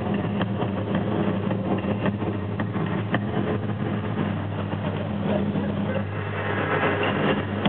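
Indistinct murmur of a large arena audience with scattered small knocks and claps, over a steady low hum.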